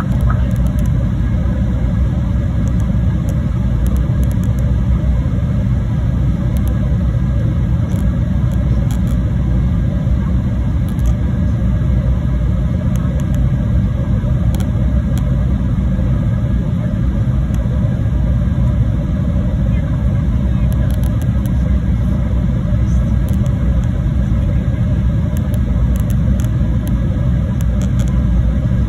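Steady jet airliner cabin noise in flight: an even, low rumble of engines and rushing air, with a few faint steady tones above it.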